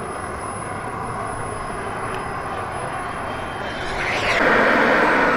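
Radio-controlled model jet running its engine while taxiing: a steady jet hiss with a thin high whine, which swells sharply and grows much louder about four seconds in.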